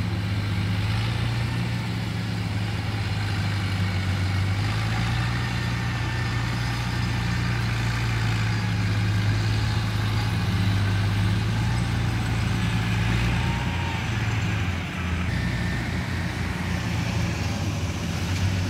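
Engine of a small tracked rice carrier running at a steady speed as it drives across the field loaded with sacks, a constant low drone. About fifteen seconds in the sound dips briefly and changes slightly.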